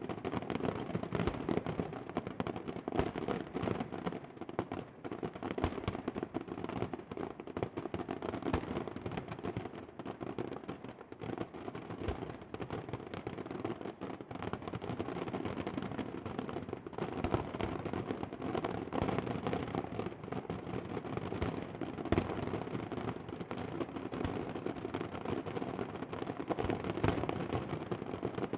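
Aerial fireworks going off in a dense, unbroken barrage of many rapid bangs and crackles.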